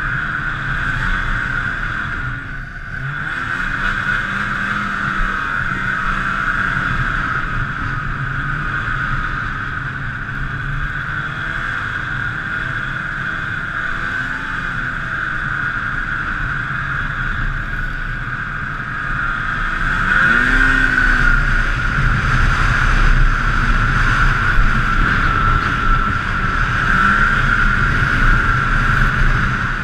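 Snowmobile running at speed along a groomed trail, heard from the rider's seat as a continuous engine drone with a steady high whine. It gets louder about two-thirds of the way through as the throttle opens.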